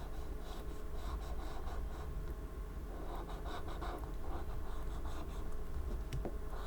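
Light, irregular scratching and rubbing from hand-cleaning a small Apple Watch, over a steady low hum, with a couple of small sharp ticks near the end.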